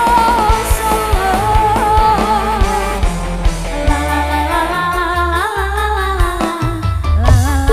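A live band playing, with an electric guitar lead melody over bass, keyboard and drums, and a woman's singing voice.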